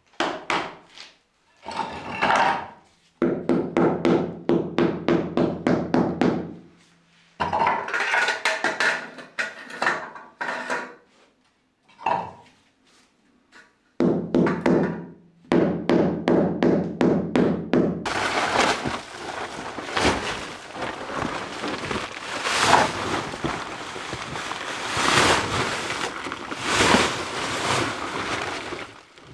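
A mallet tapping a flagstone slab down into its mortar bed in quick runs of knocks, about four a second, each with a short dull ring. Near the end, a plastic tarp rustles and crackles as it is pulled over a trailer.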